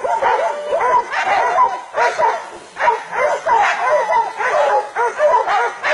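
A pack of hunting dogs barking without let-up, several dogs at once, their barks overlapping several times a second: the dogs holding a wild boar at bay.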